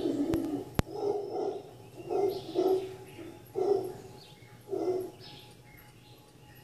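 Mantled howler monkeys calling: a long deep howl dies away in the first second, then about five short, deep calls come roughly a second apart and grow fainter. Birds call faintly above them.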